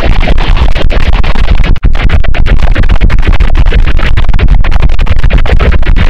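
Harsh, heavily distorted noise at near full loudness: the sound of a fountain's flowing water put through a 'G major' effects chain, so that it comes out like electronic music. It stutters with many rapid short dropouts and cuts out briefly about two seconds in.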